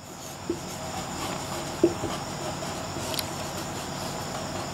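Marker pen writing on a whiteboard: scratching strokes with a few short squeaks and a sharp tick about three seconds in, over a steady background hiss.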